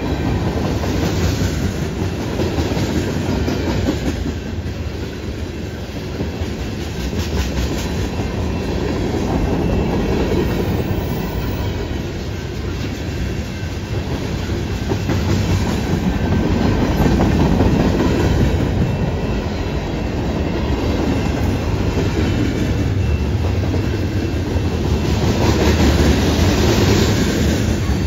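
Freight cars (gondolas, covered hoppers and tank cars) of a CN freight train rolling steadily past, their wheels rumbling and clattering on the rails, a little louder near the end.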